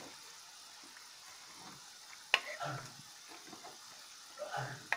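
Chicken pieces and onion frying in an aluminium pot, a steady sizzle, while a wooden spoon stirs and turns them, scraping against the pot. There is one sharp knock a little after two seconds in.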